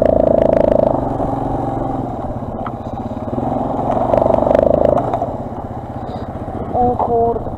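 Quad (ATV) engine running under throttle, loud at first, easing off after about a second, revving up again around the middle and dropping back, with scattered knocks and rattles as the machine crosses rough, snow-covered ground.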